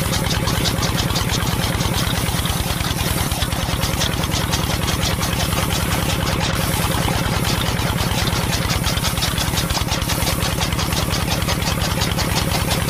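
A tractor-style engine running steadily with a fast, even beat, cutting off suddenly at the end.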